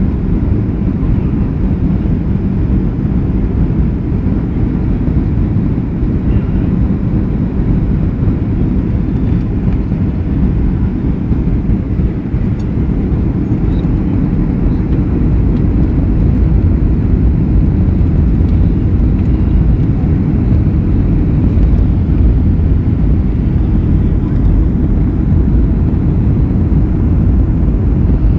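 Steady, loud low rumble of a vehicle in motion, even and unbroken with no distinct events.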